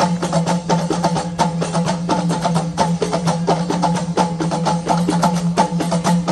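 Dakka Marrakchia percussion: rapid interlocking hand-clapping and small hand drums with a large frame drum, over a steady low sustained tone.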